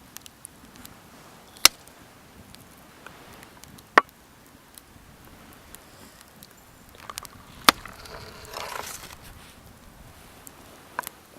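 A few sharp, isolated knocks or pops several seconds apart, with a short rustle about two-thirds of the way through.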